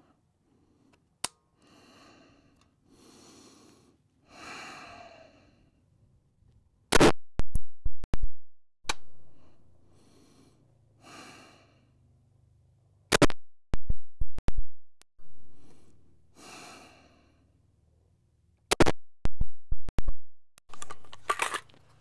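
Three 5.56 AR-15 rifle shots about six seconds apart, each a tight cluster of sharp cracks lasting about a second. These are zeroing shots at 25 meters. Faint breaths from the shooter are heard between shots.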